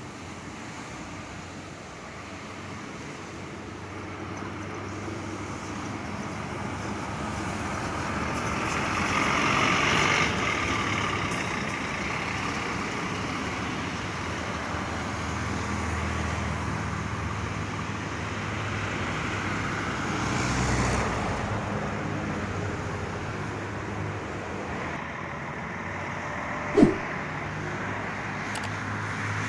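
Intercity coach bus engines running as buses move through a bus station, the sound swelling to a peak about ten seconds in and then holding steady. A single sharp knock sounds near the end.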